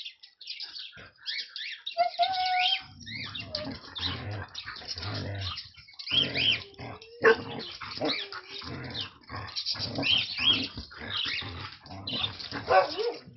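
Sled dogs vocalizing in quick, repeated bursts, with short high cries that rise and fall in pitch.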